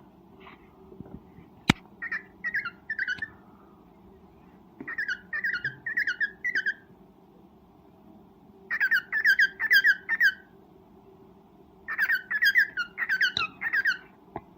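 Cockatiel giving its mating call: four bouts of rapid repeated chirps, each lasting one to two seconds, with pauses between. A single sharp click sounds about two seconds in.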